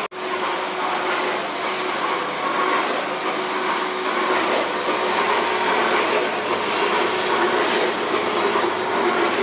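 Coffee roasting machine running, giving a steady mechanical whirr and rushing noise with a faint constant hum. The sound drops out for an instant at the very start.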